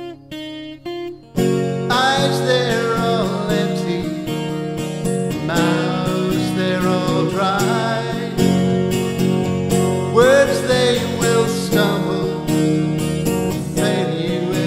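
Acoustic guitar playing a few picked single notes, then strummed steadily from about a second and a half in, with a man singing over it.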